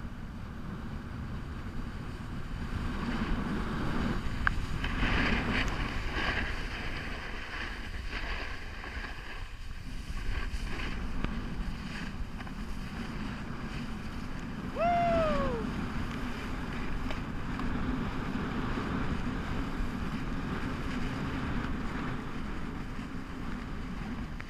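Wind rushing over the camera microphone and a snowboard sliding over groomed snow during a run downhill: a steady rushing noise that swells a few seconds in. About fifteen seconds in, a short squeal drops in pitch.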